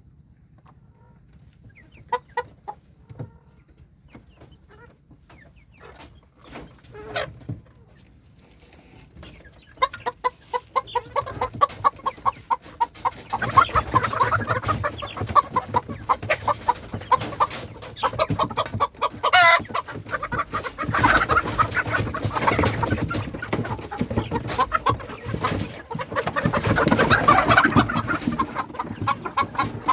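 Chickens clucking: a few scattered calls at first, then from about ten seconds in a fast run of repeated clucks that builds into loud clucking from several birds.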